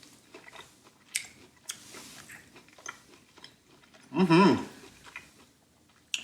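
A person chewing a bite of steak, with faint scattered clicks and mouth noises, then a short approving "mm-hmm" about four seconds in.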